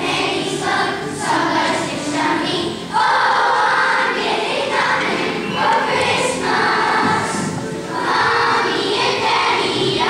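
Children's choir singing in a series of held notes.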